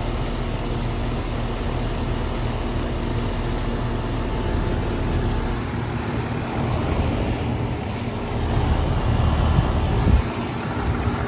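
1986 Comfortmaker heat pump running in cooling mode: a steady hum from its Bristol compressor and outdoor fan, which is turning backwards. In the second half, low gusts of wind buffet the microphone.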